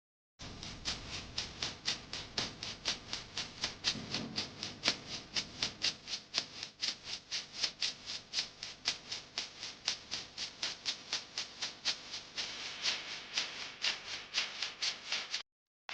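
Background music carried by a steady shaker rhythm of about five strokes a second, starting abruptly and cutting off just before the end.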